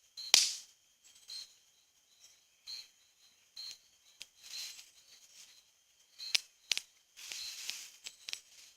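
Small straw-and-twig campfire catching and crackling, with a few sharp pops, the loudest about a third of a second in.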